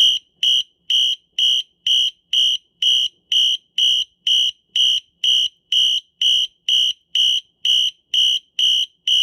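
Wheelock Exceeder fire alarm horn sounding in march-time coding: a loud, high-pitched tone pulsed about two times a second, some twenty short blasts in a row, which stop near the end.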